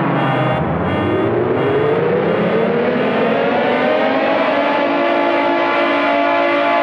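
A loud layered alarm of several sirens sounding together. Just after the start one siren's pitch drops away, then a siren winds up, rising steadily for about four seconds and settling into a level wail over a dense bed of other alarm tones.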